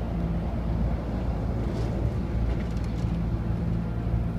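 Steady low mechanical hum of an idling motor, a constant rumble carrying a few steady low tones.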